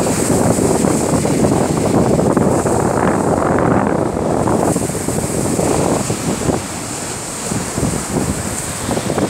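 Wind buffeting the microphone, with surf washing on a sandy shore underneath; the buffeting eases a little about six seconds in.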